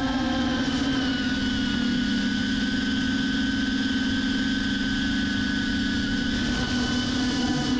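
FPV drone's electric motors and propellers buzzing steadily at a near-constant pitch, which shifts slightly about a second in and again near the end.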